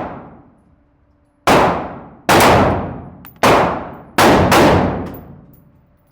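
Glock 9mm pistol fired five times at a slow, steady pace, about one shot a second, starting about a second and a half in. Each shot rings out in a long echoing decay, and the tail of an earlier shot fades away at the start.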